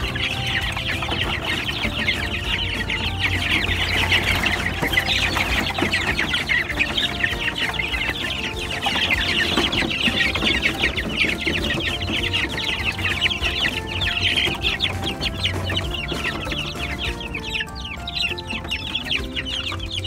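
A crowd of chicken chicks peeping, a dense chorus of short high-pitched peeps that thins out in the last few seconds.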